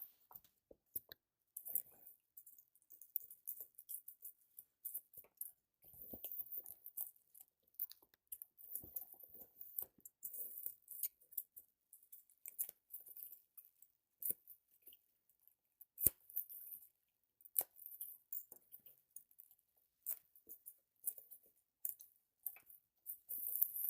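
Hands opening and handling a graphics card's retail box and packaging: irregular taps, clicks and crinkly rustles, with one sharp knock about sixteen seconds in.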